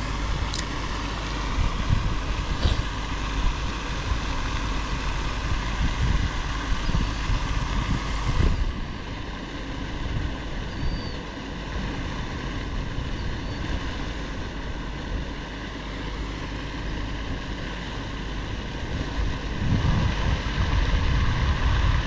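Wind buffeting the microphone: a steady rushing noise with a low rumble, easing and turning duller about eight seconds in.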